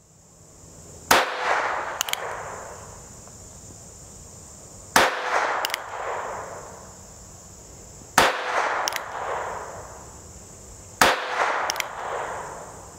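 Four shots from a North American Arms 22S mini revolver firing .22 Short rounds, three to four seconds apart. Each shot is a sharp crack with a decaying echo and a fainter snap under a second later. Every round goes off with no misfire.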